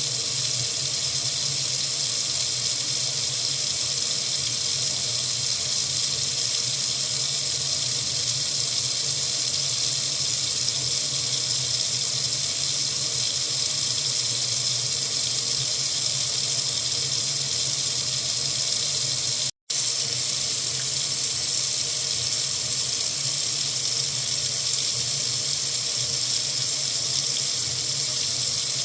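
Water faucet running steadily into a sink, a continuous even rush of water. It cuts out for an instant about twenty seconds in.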